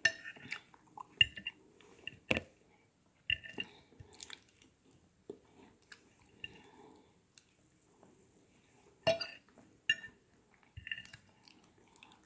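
Close-miked mouth sounds of eating soft dessert: wet chewing and smacking in short irregular bursts, with now and then a utensil clicking against a plate.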